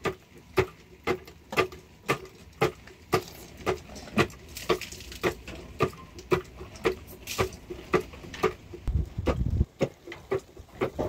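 Steady rhythmic knocking: sharp strikes about two a second, each with a short ring, and a brief low thud about nine seconds in.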